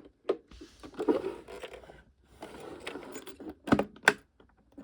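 Handling noise from a small plastic payphone being moved and touched: scraping and rustling with scattered clicks, and two sharp clicks close together near the end.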